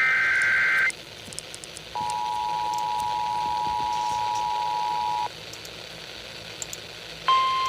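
Emergency Alert System tones on the radio. It opens with about a second of screeching digital header data. After a second of hiss, the two-tone attention signal sounds steadily for about three seconds and cuts off. Near the end, a single higher steady alert tone begins.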